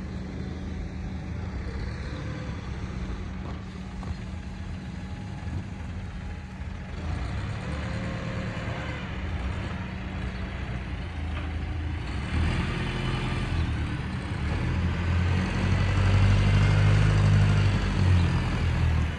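Heavy truck engine running with a steady low rumble, growing louder in the second half.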